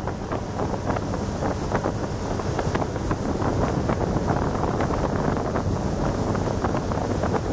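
Volvo Penta D9-575 inboard diesel of a Yamaha DY48H boat running steadily at speed, its low drone mixed with water noise from the hull and wake, and wind buffeting the microphone.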